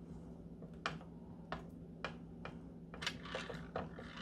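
Light, irregular clicks and taps of fingers and fingernails against the work board as hands press and smooth polymer clay, about eight in all, over a steady low hum.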